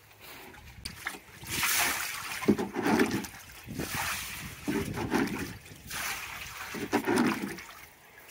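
Thinned tar net dip being scooped with a plastic jug and poured over a hoop net's netting in a tub, splashing and trickling down through the mesh three times.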